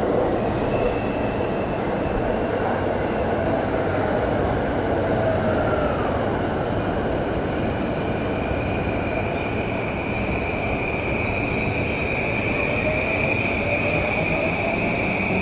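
Electric commuter train moving alongside the platform: a steady rumble of wheels on rail, with a whine that falls and then rises again and a high squeal from the wheels that builds from about halfway through.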